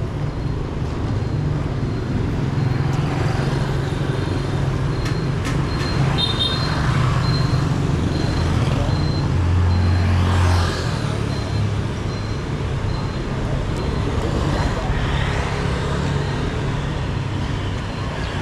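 Street traffic: engines of passing motor vehicles running steadily, with one vehicle louder about ten seconds in. A faint high beep repeats through the second half.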